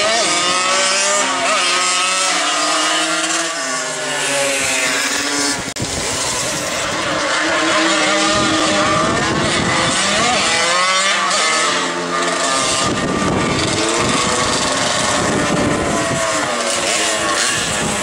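Small two-stroke 50cc moped engines revving hard off the start line, their pitch rising and falling again and again as they run. The sound breaks off abruptly about six seconds in and picks up with another run.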